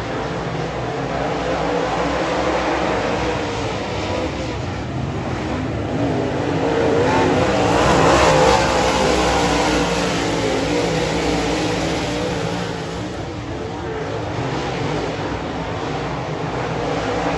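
A pack of dirt late model race cars racing, their V8 engines running hard at speed. The sound swells to its loudest as the pack passes close about halfway through, then eases as the cars move away down the track.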